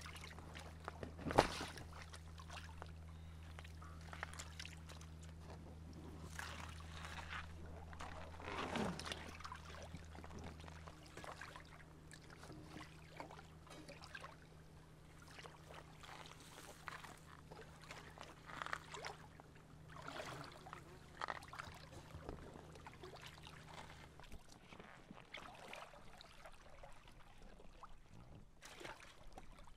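Shallow water lapping and sloshing against a rocky shore and an inflatable dinghy's hull, with knocks and thuds of gear being handled in the boat, the sharpest about a second and a half in. A faint steady low hum runs underneath for the first part.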